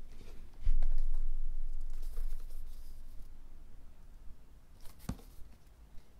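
Handling noises as a MacBook Pro fitted with a plastic hardshell case is picked up and turned in the hands. A low thump comes about a second in, followed by a brief rumble, and a single sharp click comes near the end.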